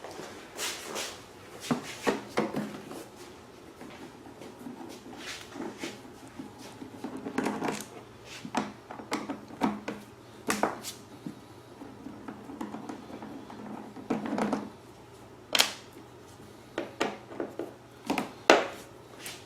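Irregular clicks, knocks and clatter of hands working on a Predator 2000 inverter generator's plastic side panels and their screws, with a sharp knock about fifteen seconds in and the loudest one near the end.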